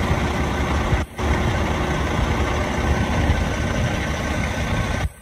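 A heavy diesel engine running steadily at idle, deep and even. It drops out for a moment about a second in, then carries on.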